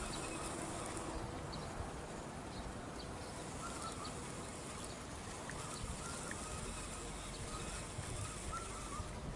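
Quiet outdoor ambience by a lake: a steady hiss with faint, short warbling bird calls repeating through the second half.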